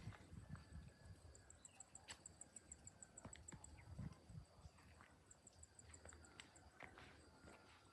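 Faint outdoor quiet with an insect chirping high and fast, about seven chirps a second, in two runs: one starting about a second and a half in, another near the end. Scattered soft low thumps and clicks come in between.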